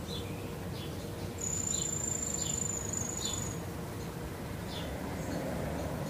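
Forest ambience: an insect sings one thin, high, steady note for about two seconds, starting about a second and a half in. Short high chirps repeat every half second or so throughout, over a low steady background rumble.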